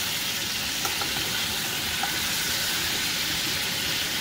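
Hot roasting-pan juices sizzling steadily around a freshly roasted whole chicken as it is basted, with a few faint clicks of the basting spoon.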